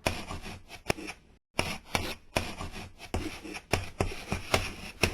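Irregular sharp clicks and knocks over a rustling noise, more than a dozen in about five seconds, with a brief drop-out about a second and a half in.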